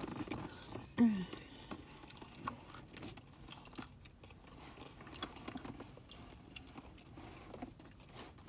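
Close-miked chewing, with wet mouth smacks and clicks going on all through. About a second in there is a short, louder vocal sound that falls in pitch.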